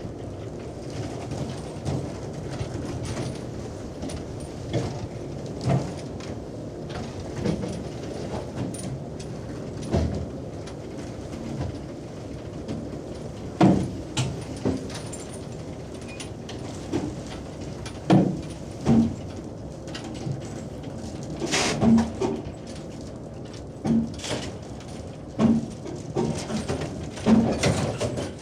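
Deck noise aboard a fishing boat hauling in its net: a steady low rumble of machinery with scattered knocks, clanks and short higher sounds every second or two.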